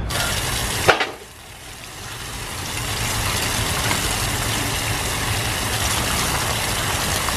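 Tap water running in a steady stream and splashing onto potatoes in a woven basket as a hand scrubs them clean. A sharp click about a second in, then the rush of water dips and builds back up.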